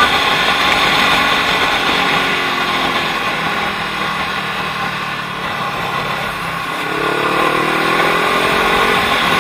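Sport-bike engine running under way in traffic, with a steady rush of wind and road noise; the engine note climbs in the last two or three seconds as the throttle opens.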